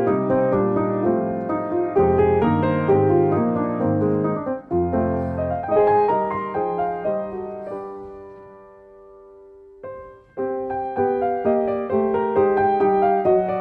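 Background piano music. The notes die away to a single fading chord about eight seconds in, and the playing starts again about two seconds later.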